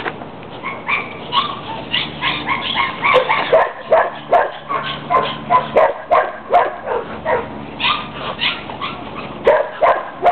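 Two puppies playing tug-of-war over a rope toy, letting out quick, short yips and barks over and over.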